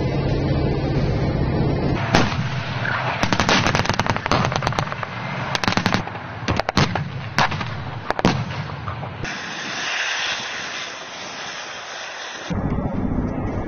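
Artillery firing: a rapid run of sharp shots and blasts starting about two seconds in, thinning to a few single shots, then a steady rushing noise for about three seconds. A low vehicle-engine rumble comes before the shots and returns near the end.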